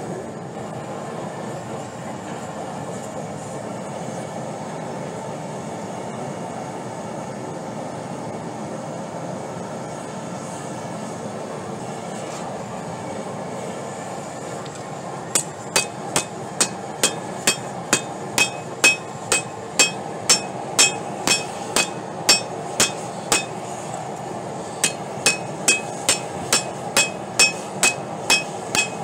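Steady rushing hiss of a gas forge burner. About halfway through, a hand hammer begins striking rebar on a Doyle anvil, about two ringing blows a second, with a short pause before the blows start again.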